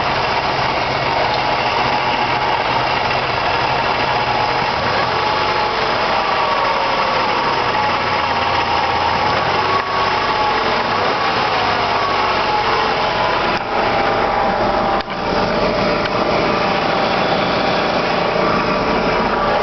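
Vehicle running steadily with a whine that slides in pitch partway through: the weird noise the owner places in the transmission area.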